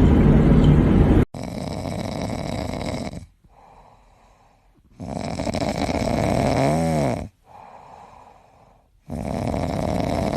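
A sleeping cat snoring: three slow, rasping snores about two seconds each, with quieter breaths between them. A loud, steady noise from before cuts off abruptly about a second in.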